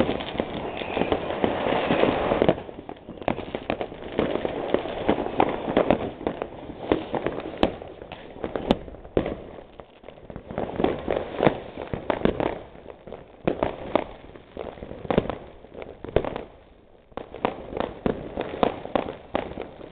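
Fireworks and firecrackers going off: a dense, continuous run of bangs and crackling for the first couple of seconds, then irregular sharp cracks and bangs coming thick and fast.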